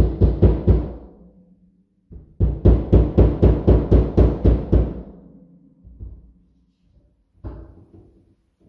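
Claw hammer tapping a locking pin through a wire-shelf support bracket into drywall. A run of quick blows at about four a second ends about a second in, a second run starts near 2.5 s and fades out, and a couple of single taps follow.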